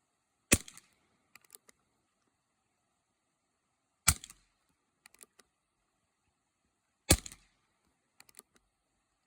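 Three shots from a Heritage Rough Rider .22 single-action revolver carbine firing .22 Short subsonic rounds, about three seconds apart, each a sharp crack. A few quiet clicks follow about a second after each shot as the hammer is cocked for the next round.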